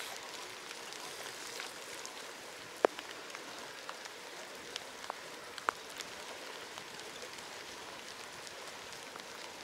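Water drops pattering on a surface after rain: a steady hiss with scattered sharp ticks of single drops, the loudest about three seconds in.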